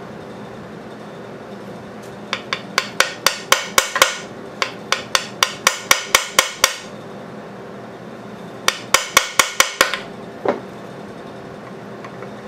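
A small hammer tapping the lobes on a Tecumseh small engine's crankcase side cover to break it loose from its gasket and seal. The taps come in three quick runs of about five a second, with one last single tap near the end.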